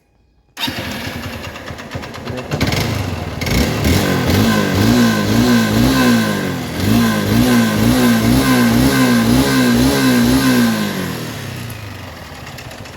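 Honda 160 carbureted single-cylinder motorcycle engine running and being revved up and down over and over, then dropping back toward idle near the end. It runs with a noise that the mechanic puts down to a seized, scored piston, the engine burning oil.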